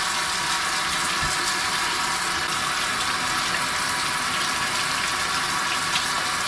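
Water tap running steadily into a bathroom sink, an even hiss, with a short low thump about a second in.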